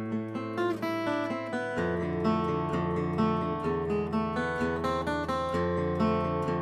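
Background music: acoustic guitar strumming chords in a steady rhythm, shifting to a deeper chord about two seconds in.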